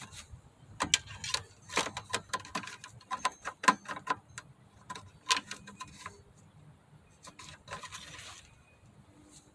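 Irregular light clicks and taps of a lawnmower's oil dipstick being handled, wiped and pushed back into the filler tube, with a short rubbing noise near the end.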